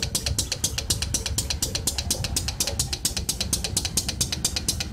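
A factory machine running with a rapid, even clatter of about eight strokes a second over a steady low rumble.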